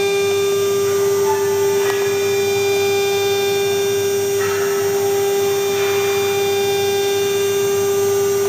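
3 kW water-cooled CNC router spindle running with a steady, high-pitched whine that stays at one even pitch and level.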